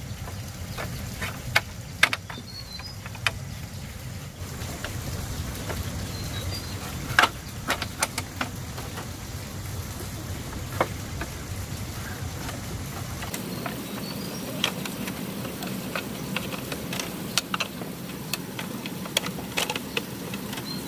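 Thin split-bamboo strips clicking and clattering against each other and the bamboo chair frame as they are handled and woven into the seat and backrest, a scatter of short sharp clicks over a steady low background hum.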